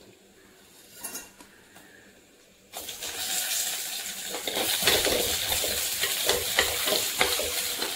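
Hot oil in a clay pot sizzling and crackling as tempering ingredients go in, starting suddenly about three seconds in and staying loud, with sharp spitting pops throughout; before that, only a few soft clicks of a metal ladle against the pot.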